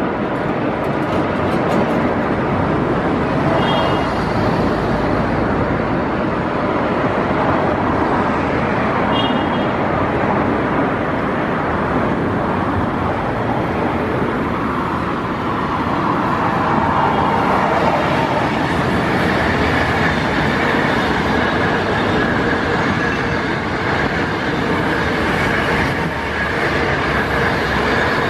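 Passenger train hauled by an HXD1D electric locomotive approaching and rolling past, a steady rumble of wheels on rails. A thin steady whine comes in a little past halfway as the coaches pass close by.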